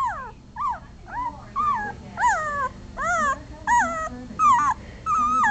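Four-day-old German Shepherd puppy whimpering in a string of about ten short, high-pitched squeaky cries, roughly two a second, each bending down in pitch.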